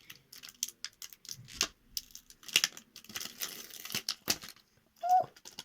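Crinkly plastic packaging and small plastic doll accessories being handled: scattered rustles, clicks and taps of uneven strength, with a brief voice sound about five seconds in.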